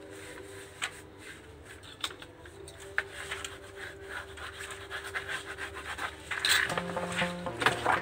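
Hands rubbing and scraping across cardboard book-cover boards laid on a paper sheet, with a few sharp taps, then a louder rustle of a glossy printed cover sheet being handled near the end.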